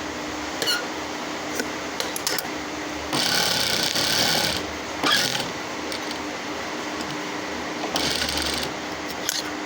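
Sewing machine stitching in two short runs, one of about a second and a half some three seconds in and a shorter one near the end, over a steady hum, with light handling clicks between the runs.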